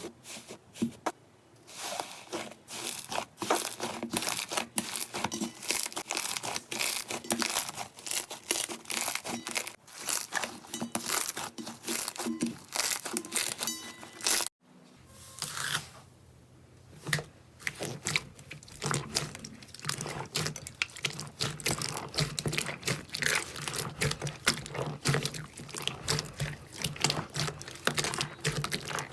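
Slime being squeezed and pressed by hand, a dense crackle of small pops and clicks, broken off briefly about halfway.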